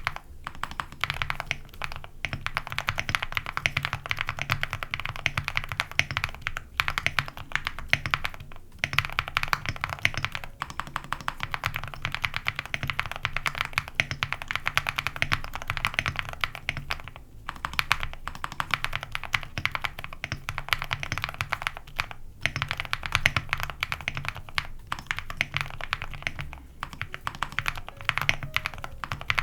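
Rapid, continuous typing on a mechanical keyboard with Gateron Moon Landing switches, PBT keycaps, an aluminium plate and full foam: dense streams of keystrokes broken by a few short pauses.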